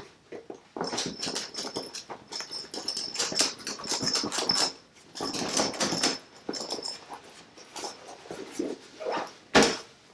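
Cotton canvas tool bag shaken and rubbed by hand to work loose debris out of its bottom: a dense rustling and scraping of cloth, then a single sharp slap on the bag near the end.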